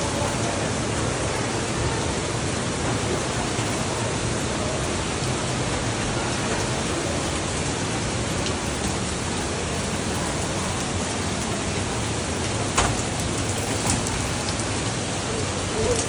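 Steady rush of waterfall water falling and spattering onto rock, with one brief sharp knock late on.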